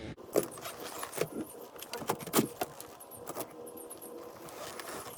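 Small metal tools or parts being handled: a run of sharp metallic clinks and clatters over the first three and a half seconds, then quieter rustling.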